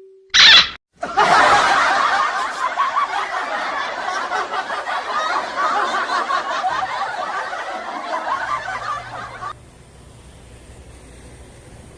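A short, loud burst, then many people laughing together for about eight seconds before the laughter cuts off suddenly. A faint low hum is left after it.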